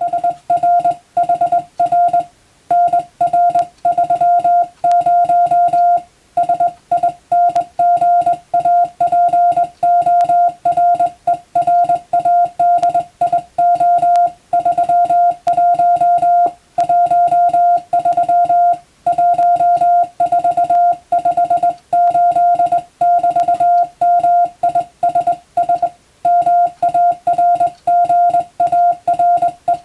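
Morse code (CW) sent as a steady mid-pitched beep, keyed on and off in fast runs of short dots and longer dashes, with short gaps between letters and longer gaps between words. It is practice text from an English-language telegram drill.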